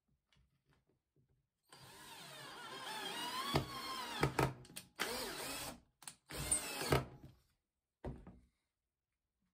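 Cordless drill driving a wood screw through a board into an MDF spoilboard. It starts with one run of about two and a half seconds, its motor whine climbing in pitch, then gives several short trigger runs.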